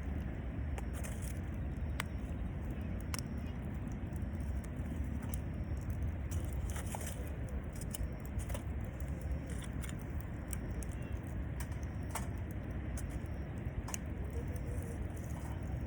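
Wood campfire crackling, with scattered sharp pops every second or two over a steady low rumble.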